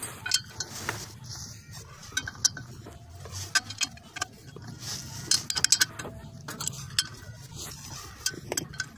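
Hand wrench tightening the bolts of a clutch pressure plate onto a flywheel: irregular clusters of short metallic clicks and clinks as the tool works each bolt in turn.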